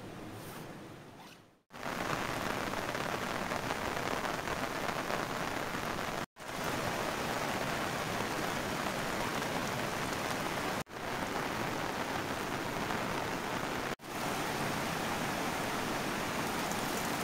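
Steady rain falling, a dense even hiss that cuts out for a moment every few seconds and picks straight up again.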